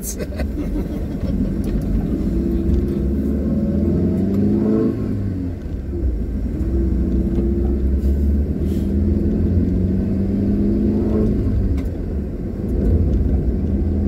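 Car engine and road rumble while driving, the engine's pitch rising as it speeds up, dropping about five seconds in, then rising again.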